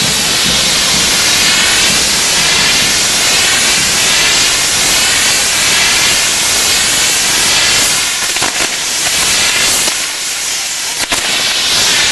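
Fireworks on a pyrotechnic castillo tower burning with a loud, steady hiss that wavers in pitch. The hiss eases somewhat near the end, and a couple of sharp cracks come through.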